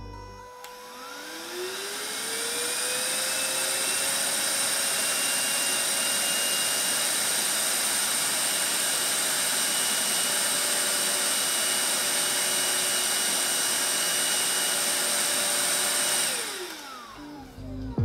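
BlitzWolf BW-AD1 mini handheld vacuum cleaner's motor spinning up with a rising whine, then running steadily with a loud, high-pitched whine over rushing air, and winding down with a falling whine near the end.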